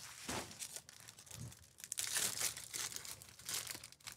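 Foil wrapper of a Topps Chrome baseball card pack crinkling and tearing open in the hands, in a few short bursts.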